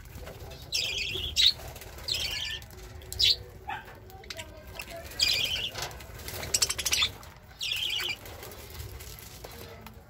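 Caged budgerigars chirping: a string of short, high-pitched calls about half a second each, coming every second or so, with a rapid flutter of wings about seven seconds in.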